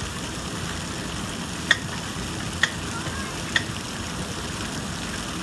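Steady hiss of water spraying from splash-pad fountains, broken by three sharp clicks about a second apart.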